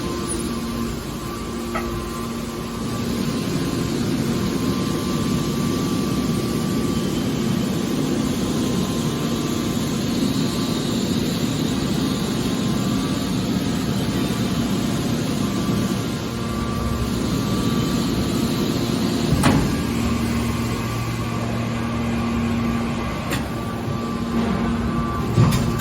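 Hydraulic metal baler running: a steady machine hum with a continuous noisy wash, broken by two sharp knocks, one about two-thirds of the way through and one near the end.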